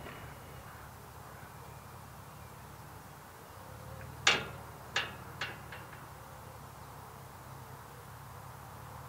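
Railway semaphore signal arm being moved by its wire and rods, the mechanism clanking sharply about four seconds in, then three smaller fading clanks as it settles. A low steady rumble sits underneath.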